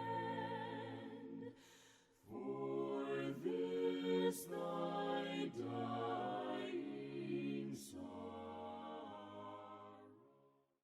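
Voices singing a hymn a cappella in held chords, with a short break between phrases about two seconds in, fading out just before the end.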